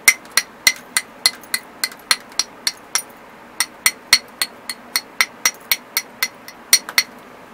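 Hammer stone striking the edge of an obsidian slab in quick, light glancing blows, about three to four sharp glassy clicks a second with a short pause about three seconds in. The blows knock small flakes off the edge while the tip is roughed in.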